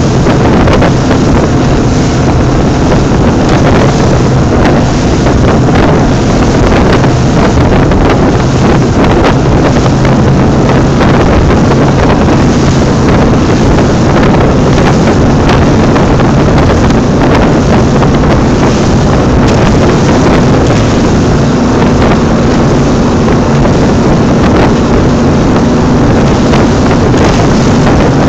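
Cigarette-type offshore speedboat running fast, its engines droning steadily beneath loud wind rushing over the microphone and the hiss of spray from the wake.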